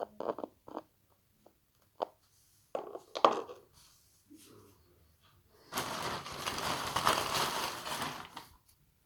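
Slime being worked by hand: scattered short sticky clicks and pops, then a few seconds of dense crackling noise starting about six seconds in.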